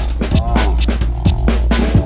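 Electronic background music with a steady drum beat and a deep bass line.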